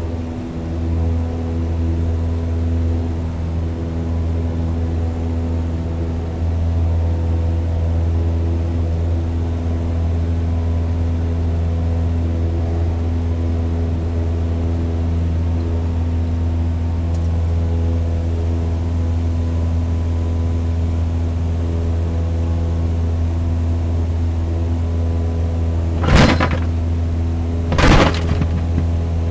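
Quadcopter drone's propellers humming steadily, several fixed tones over a strong low drone. Two brief knocks near the end.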